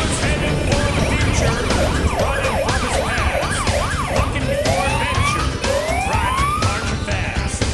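Police electronic siren sounding, first a fast up-and-down yelp for a few seconds, then slower rising whoops about once a second, over a steady low rumble of wind and engine noise.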